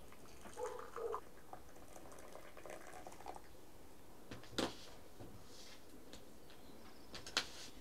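Tea trickling from a glass teapot into tea glasses, then two sharp clicks a few seconds apart, the second near the end.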